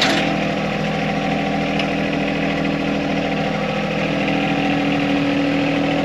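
John Deere compact tractor's three-cylinder diesel engine idling steadily at low idle.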